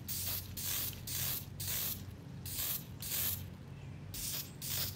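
Spray can of clear satin finish being sprayed in short hissing bursts, about eight in quick succession, each lasting well under half a second.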